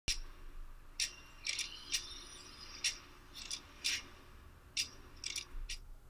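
Irregular metallic clicks and clinks, about a dozen in all, quiet and high-pitched, a few ringing briefly, like small metal tools tapping together.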